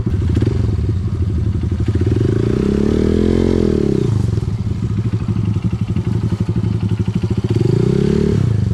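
Trail motorcycle engine running loud and steady, revving up and back down about three seconds in, and again near the end where the revs climb and then drop sharply.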